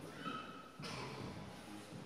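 Quiet table tennis hall between points: a brief high squeak, then a single sharp knock a little under a second in.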